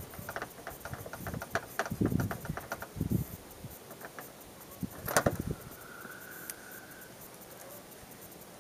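A knife scraping fat and flesh off the underside of a sheep hide in quick, short strokes, then a single louder knock about five seconds in.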